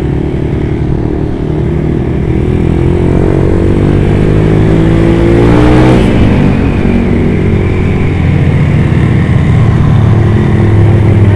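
Motorcycle engine heard from the rider's seat, accelerating with its pitch climbing, then changing note about six seconds in and pulling on again, over wind rush.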